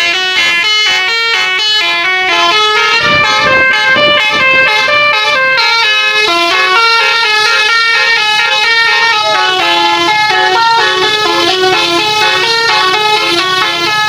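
Tour bus's basuri telolet horn, a multi-trumpet air horn playing a fast melody of short stepping notes without a break.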